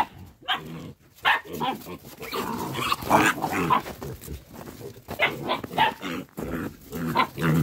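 West Siberian Laika puppies barking in quick, irregular bursts while wrestling, worked up in hunting excitement.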